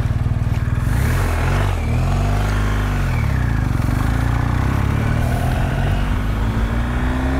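Motorcycle engine pulling away and accelerating: steady at first, the engine note rises and drops a few times between about one and three seconds in as it shifts up, then climbs steadily toward the end.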